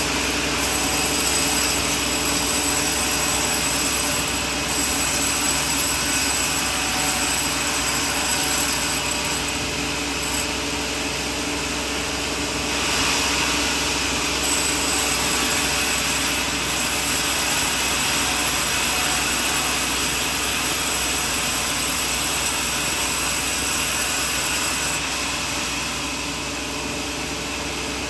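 Sawmill running, its blade sawing coconut wood, the noise louder and whining high during stretches of cutting. It drops back about ten seconds in and again near the end.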